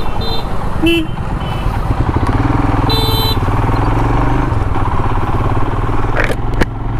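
Royal Enfield Himalayan's single-cylinder engine running steadily under way, with wind and road noise. A vehicle horn sounds briefly about three seconds in.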